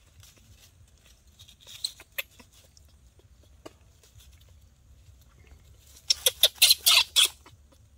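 Baby monkey giving a quick run of about seven short, high-pitched squeals near the end, after a few faint clicks about two seconds in.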